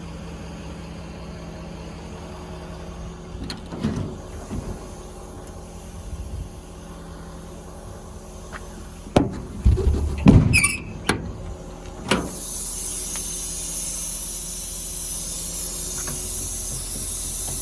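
Service truck's diesel engine running steadily underneath while a metal service-body compartment door is worked: a squeal and several loud clunks about two-thirds of the way in. A steady hiss then sets in and continues.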